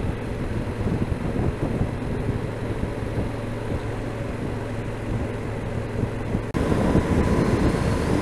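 Yamaha XT1200Z Super Ténéré's parallel-twin engine running at a steady cruise, heard through buffeting wind noise on the bike-mounted camera's microphone. About six and a half seconds in, the sound changes suddenly and becomes brighter.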